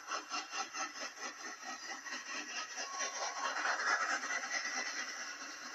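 Model steam train passing on its track: a rhythmic beat of about three or four a second fades over the first two seconds into a steady rolling rumble as the passenger cars go by, played back through a TV speaker.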